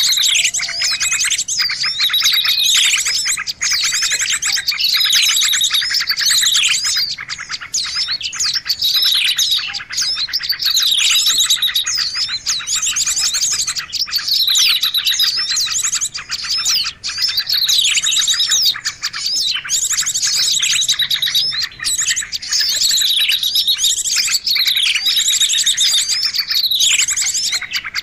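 Bird-lure recording of mixed small songbirds: dense, rapid chattering trills with a sharp down-slurred call that repeats about every two seconds.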